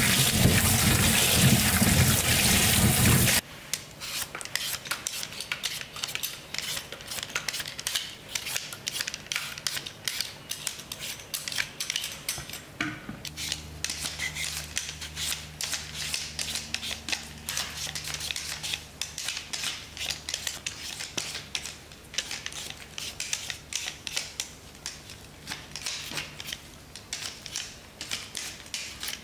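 Tap water running onto potatoes being rubbed clean by hand in a steel bowl in the sink, cutting off suddenly after about three seconds. Then a Y-peeler scrapes raw potatoes in quick repeated strokes, with a faint low steady hum joining partway through.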